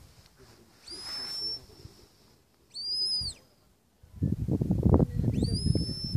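Three shrill whistle commands from a sheepdog handler directing the dog: the first rises and holds, the second rises and falls, the third rises and holds near the end. From about two-thirds of the way in, a louder low rumbling noise on the microphone.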